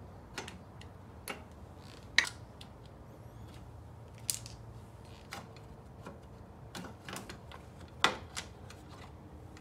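Scattered metal clicks and clanks of hand work on a small dirt bike's exhaust as it is unbolted and pulled free, with a few sharper knocks about two, four and eight seconds in.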